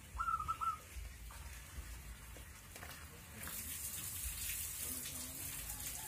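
Caged zebra dove (perkutut) calling: a short run of quick whistled cooing notes just after the start. About halfway through, a steady high hiss comes in and stays.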